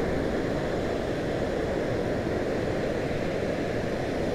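River water rushing steadily over a weir, a constant roar of churning water.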